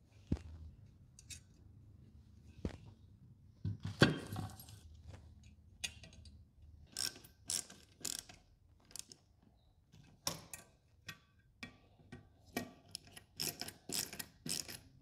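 Ratcheting double-drive screwdriver clicking in short irregular runs as small screws and flange nuts are tightened to mount a push-button air valve on a sheet-metal frame, with a sharper knock about four seconds in.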